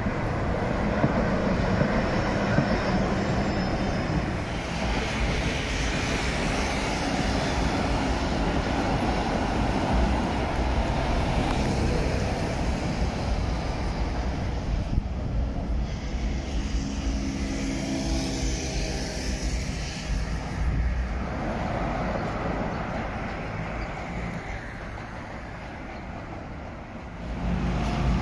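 Heavy road traffic on a wide city street: a continuous rush of cars passing close by. In the middle a steady hum of several tones comes up as a pair of red Konstal 105N-type trams goes past, and the noise dips briefly just before the end.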